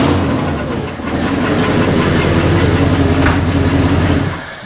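1961 Mercury Meteor's V8 engine idling steadily on its new carburetor and mechanical fuel pump, then stopping near the end.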